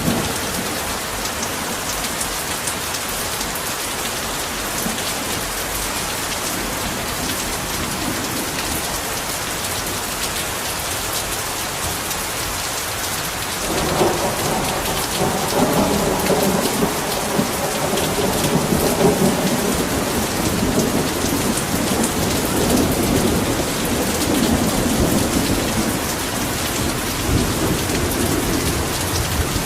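Heavy rain falling steadily, with a long rumble of rolling thunder starting suddenly about halfway through.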